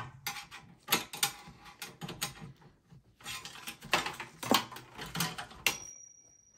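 Cables and plastic connectors being handled and pulled free inside a desktop PC's sheet-metal case: an irregular run of clicks, rattles and knocks, ending with one sharp click near the end.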